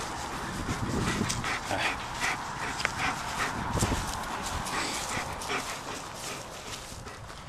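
German Shepherd dog panting close to the microphone, with short scuffing and rustling sounds and a couple of low thumps, about one and four seconds in.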